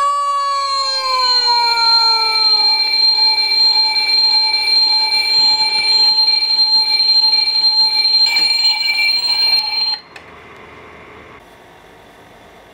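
An alarm ringing loud and steady, then cutting off abruptly about ten seconds in. Over the first couple of seconds a held cry trails slowly down in pitch beneath it.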